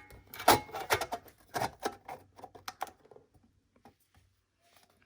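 Hands handling the opened computer hardware: a quick run of small clicks and light knocks for about three seconds, then it goes almost quiet.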